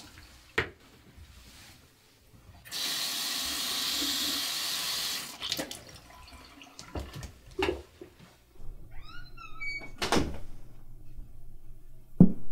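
Bathroom sink tap running with a steady hiss for about two and a half seconds, then turned off. A click comes before it, and two thumps follow later; the second thump, near the end, is the loudest sound.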